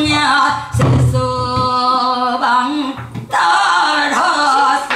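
Female pansori singer in the Boseong style singing, her voice bending and then holding a long steady note in the middle, with a couple of low strokes on the gosu's buk barrel drum.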